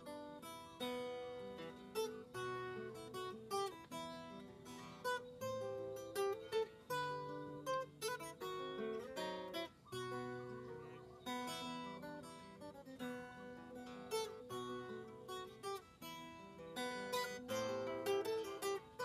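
Background music on acoustic guitar: a plucked melody of notes over chords.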